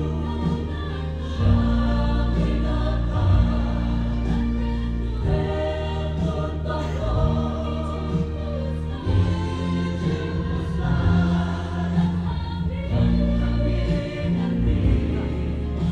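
Music: a choir singing over sustained bass notes that change every second or two.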